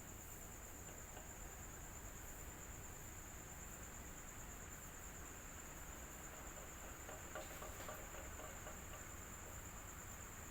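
Electric fan running steadily: a faint, even whoosh with a low hum and a constant high-pitched whine over it.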